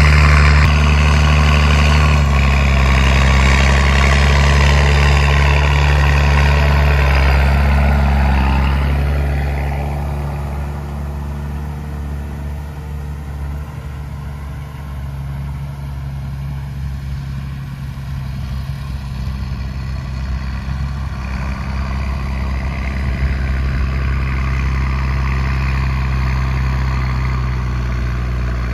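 John Deere 7810 tractor's six-cylinder diesel engine running steadily while pulling a Kuhn Maxima planter. The drone fades about nine seconds in as the tractor moves away, then grows louder again near the end.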